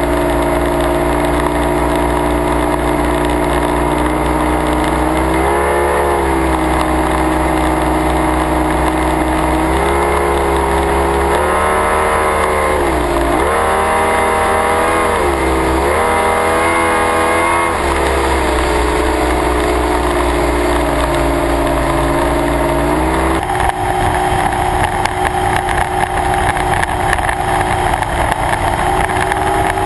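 Performance boat's engine running hard at speed, heard from onboard, its pitch rising and dipping several times in the middle as the throttle is worked. About two-thirds of the way through it drops suddenly to a lower, rougher idle as the boat comes off the plane.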